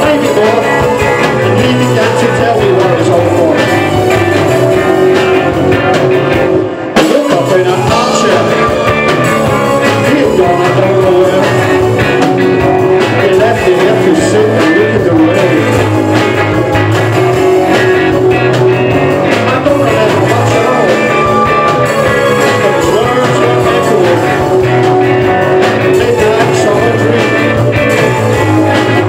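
Live rock band playing loud and steady: electric guitar, bass guitar and drum kit together, with a brief dropout in the sound about seven seconds in.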